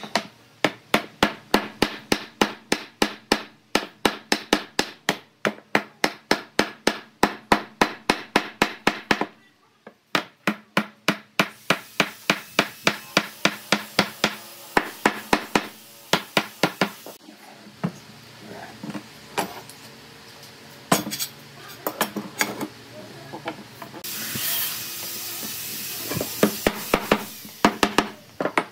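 A heavy metal hammer knocking on the end of a hardwood table leg, driving the rails' joints tight: rapid even blows at about four a second, a brief pause near the middle, another fast run, then slower scattered knocks in the second half.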